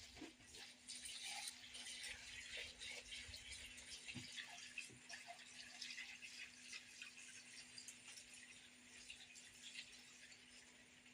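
Faint trickling water with many small drips and ticks, strongest in the first half and fading towards the end, over a steady low hum.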